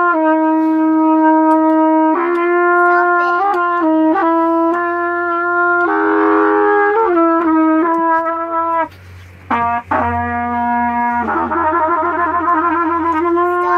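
Trumpet played in long held notes, mostly on one pitch. A wavering note comes about six seconds in, and there is a short break around nine seconds. Then a lower note follows, and the last long note wobbles with a shake.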